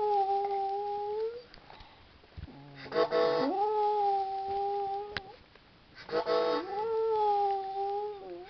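Pet dog howling along to music that is being played, in three long held phrases with short pauses between them.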